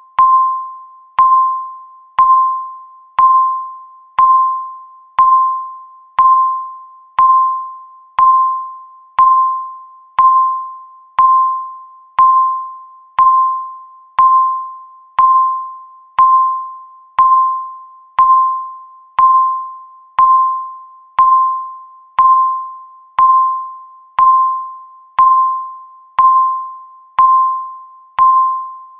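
Countdown timer beeping once a second: a single-pitched, bell-like beep with a sharp start that fades quickly, repeated at an even pace, one beep for each second counted down.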